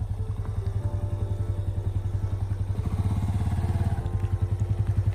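An engine running at low speed with a steady, even beat of several pulses a second.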